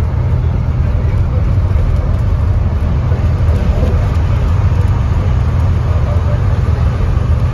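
Inside a school bus at freeway speed: a steady low rumble of engine and tyre noise.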